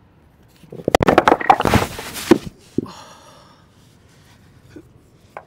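Heavy rounded beach rocks falling off a balanced stack and crashing and grinding onto the stones below, a loud clattering run of knocks lasting about a second and a half, with one last knock just after.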